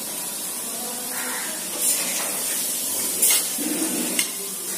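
Pakora batter frying in hot oil in a kadai: a steady sizzle, with a few short scrapes and taps of a metal spatula against the pan.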